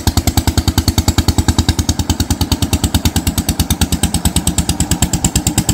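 Wooden fishing boat's inboard engine chugging steadily as the boat passes close. It makes a loud, rapid, even knocking of about a dozen beats a second.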